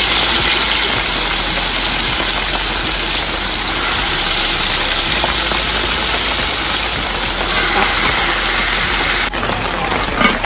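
Seasoned chicken pieces sizzling loudly as they brown in a steel pot over a wood fire, a steady hiss that cuts off abruptly near the end.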